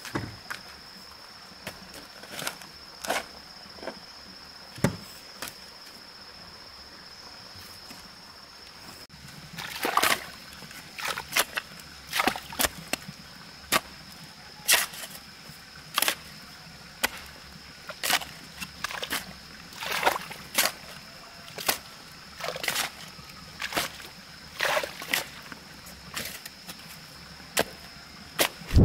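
Steel shovel blade chopping and scraping into wet clay soil in repeated sharp strikes, about one a second at first, then closer together and louder from about nine seconds in. A steady high insect whine runs underneath.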